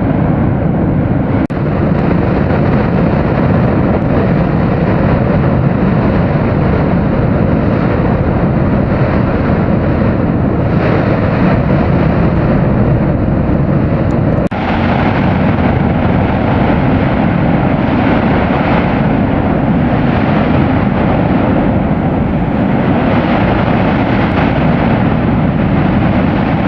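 Mount Bromo's crater rumbling during an eruption phase: a loud, continuous roar, heaviest in the low end, with two brief dips about a second and a half in and near the middle.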